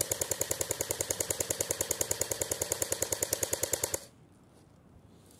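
Cyma CM028U electric airsoft rifle, an AKS-74U replica, firing one full-auto burst of about four seconds at roughly twelve shots a second, then stopping abruptly.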